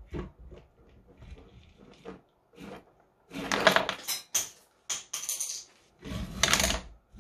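Aluminium Z-axis assembly being slid onto linear rail carriage blocks by hand. First a few light clicks, then several louder bursts of metal scraping and clunking over the last four seconds.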